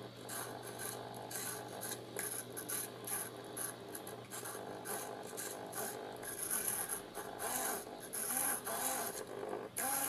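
Small hobby micro servo whirring and rasping in short bursts, again and again, as its horn is swung back and forth to follow a track bar. Near the end a few of the moves bring a brief whine that glides up and down in pitch.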